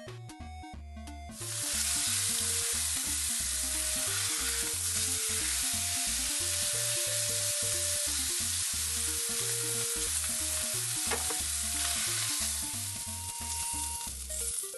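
Lean beef steak searing in hot oil in a frying pan: a steady loud sizzle that starts about a second in and fades out near the end as the steak is lifted out, over light background music.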